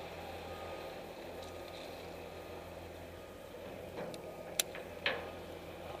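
Crane truck engine running at a steady idle, a low even hum, with a few sharp clicks and a louder knock near the end.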